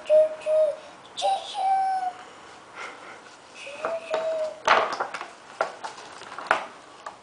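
A toddler's short high-pitched vocal sounds, without words, early on and again around the middle, then a cluster of knocks and rustling about two-thirds of the way through, with one more knock near the end, as books are moved about on a plastic high-chair tray.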